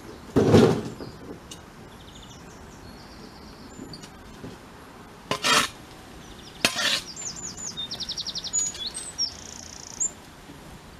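Three knocks from hand digging in stony garden soil: a loud one about half a second in and two sharper ones around the middle. Songbirds sing throughout, one with a fast trill about eight seconds in.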